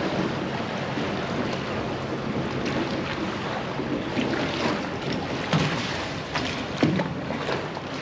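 A small fishing boat's engine running as it heads away across the harbour, its low hum growing fainter, over water lapping and wind on the microphone. Two sharp thumps come about five and a half and seven seconds in.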